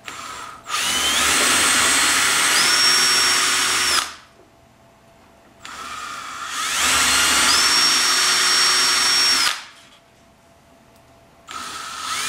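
Handheld electric drill with a 3/16-inch bit boring engine-mount holes through a model airplane's wooden firewall. It runs three times with short pauses in between, its whine rising in pitch as each run spins up.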